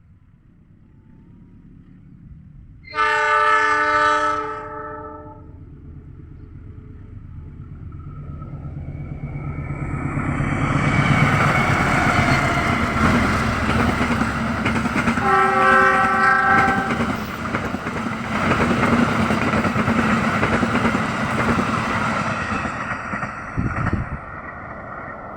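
Indonesian train sounding its multi-note horn as required at an S.35 horn sign: a long blast about three seconds in and a shorter one midway. The horns sound over the rumble of the train passing close by, which builds up, stays loud, and drops away sharply near the end.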